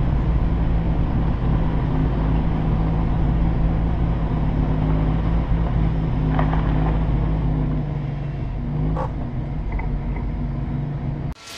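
Car driving at speed, heard from a camera mounted outside the car: a steady engine drone and road noise over a heavy low wind rumble on the microphone. It cuts off abruptly near the end.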